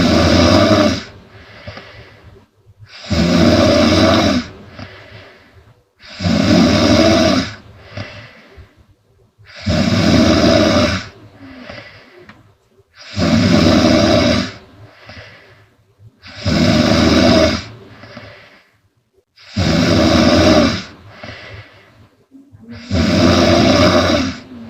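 A woman snoring loudly in steady rhythm: about eight loud snores on the breath in, one every three seconds or so, each followed by a softer breath out.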